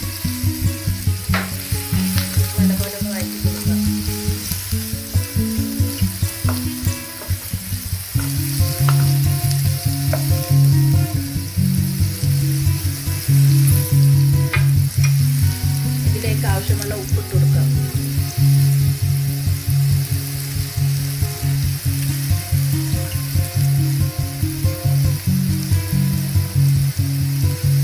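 Sliced onions sizzling in hot oil in a nonstick frying pan, stirred now and then with a spoon. Background music with a steady beat plays over it.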